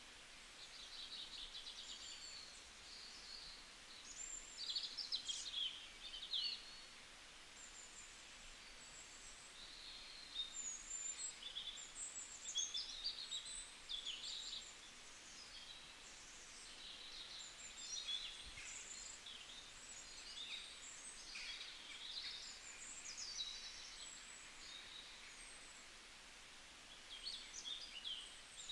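Faint chirping and twittering of small birds in irregular bursts of short, high calls, over a steady low hiss.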